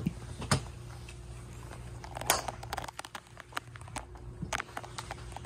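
Scattered sharp clicks and knocks over a steady low hum, the loudest about two seconds in, with a quick cluster just after: golf practice-range noise of clubs striking balls and gear being handled.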